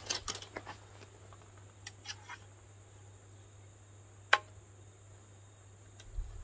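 Quiet handling of arrows and a recurve bow: a light rattle of arrows at the start, a few faint taps, then one sharp click with a short ring about four seconds in as the arrow is set on the bow.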